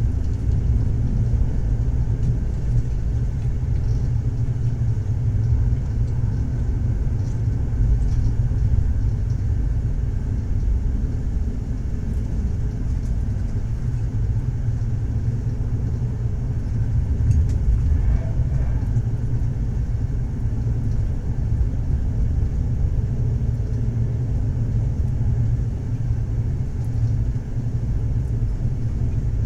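Train running on the rails: a steady low rumble that neither rises nor falls, with no distinct wheel clacks standing out.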